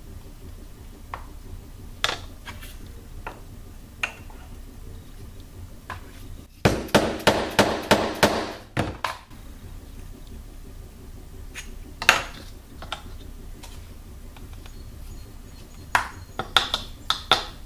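Rubber dead-blow mallet tapping a wooden dowel to pack powdered rocket fuel down inside a PVC tube: a quick run of about ten taps, roughly four a second, over a couple of seconds. Lighter scattered knocks and clinks of the funnel, dowel and tube on the bench come before and after, with a single sharp knock and a short cluster of taps near the end.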